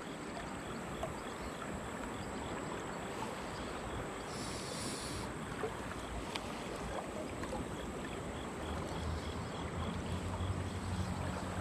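Steady wash of shallow creek water rippling and sloshing around someone wading knee-deep.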